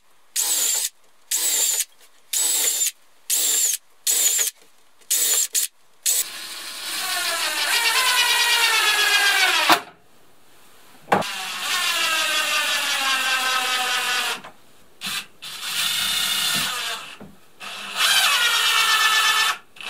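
Cordless drill drilling a row of small holes in a pine board, in about eight short trigger bursts. It then drives wood screws in two longer runs, the motor's pitch falling through each, with a sharp click between them. Short bursts and one more run follow near the end.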